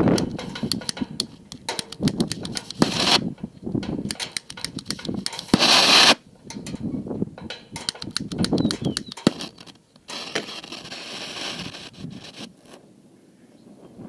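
Flint striker scraped again and again at the tip of an oxy-acetylene torch, a string of sharp clicks while trying to light it. Two loud bursts of rushing noise come through about three and five and a half seconds in.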